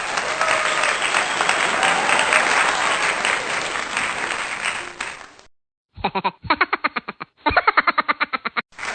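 Crowd applause with cheering that cuts off after about five seconds. After a short silence comes a quick run of rhythmic laughter, ha-ha pulses several times a second. The applause returns near the end.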